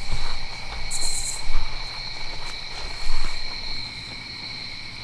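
Crickets trilling steadily, with irregular low thuds and rumbles on the microphone, loudest in the first few seconds, and a brief high hiss about a second in.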